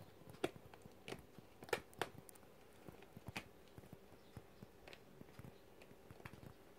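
Faint scattered clicks and soft rustles of a kitten playing, clawing and kicking at a plush toy's cloth and shuffling on a shaggy rug, with a few sharper taps in the first couple of seconds.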